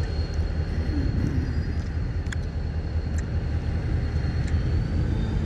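Steady low rumble of vehicle noise in the open air, with no distinct events.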